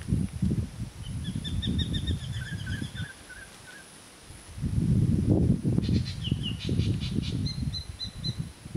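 Low rumbling noise in two long gusts, wind buffeting the microphone, over a bird calling in two runs of quick, short whistled notes, about a second in and again after about six seconds.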